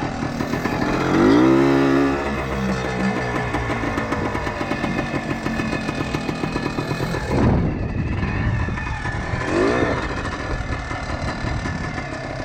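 1976 Kawasaki KT250 trials bike's single-cylinder two-stroke engine running while being ridden, revved up and back down: one longer, loudest rev about a second in, then two shorter blips of the throttle about halfway and later on.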